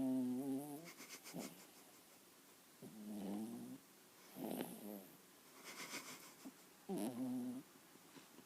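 A young puppy snoring in its sleep: a buzzing, pitched snore every couple of seconds, four in all, with breathy puffs of air between them.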